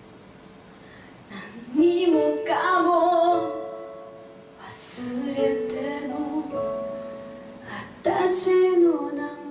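A woman singing a slow ballad while accompanying herself on an electronic keyboard. After a quiet first second and a half of held chord, her voice comes in over soft keyboard chords in sung phrases, with a short pause between phrases.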